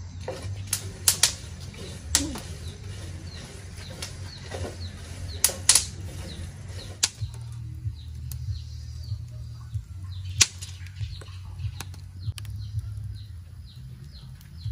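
Pumpkin seeds toasting on a clay comal over a wood fire, popping and crackling at irregular intervals, with a few louder sharp pops.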